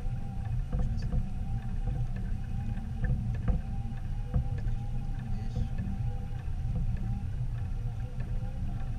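Muffled low rumble of water and hull noise from a pedal fishing kayak under way, heard through a GoPro's waterproof housing, with a faint steady whine above it. A couple of small knocks come around the middle.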